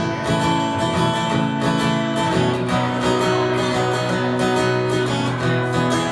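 Acoustic guitar strummed steadily in a live country-folk song, an instrumental passage between sung lines.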